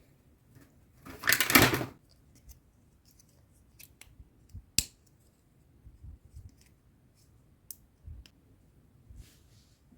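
Toy accessory packaging handled during unboxing: a short noisy scrape about a second in, then scattered small clicks and one sharp click near the middle.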